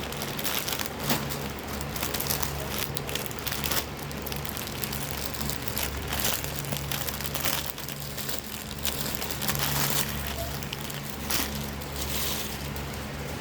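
Packaging crinkling and rustling in irregular bursts as a parcel is unboxed by hand, over a steady low hum.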